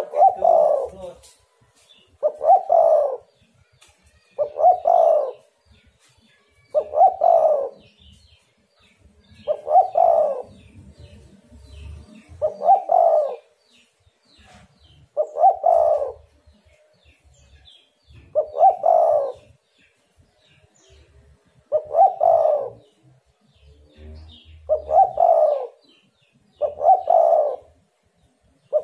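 Spotted dove cooing: a short coo phrase repeated about every two to three seconds, eleven times.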